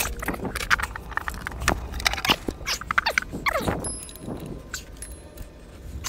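Metal hand tools clinking, rattling and scraping against the water pump bolts and housing of a GM LS-style engine: a quick string of sharp clicks and knocks, with a couple of short sliding scrapes.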